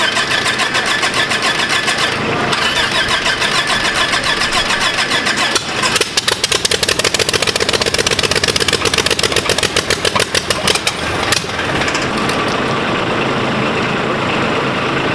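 Lycoming O-540 horizontally opposed six-cylinder aircraft engine running on a test stand, its propeller turning. About six seconds in the engine grows louder with a rapid, even pulsing for about five seconds, then settles back to a steadier, quieter run.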